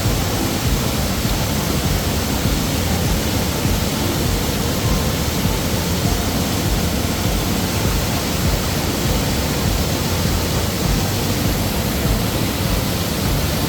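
A river rushing steadily, a continuous even roar of flowing water.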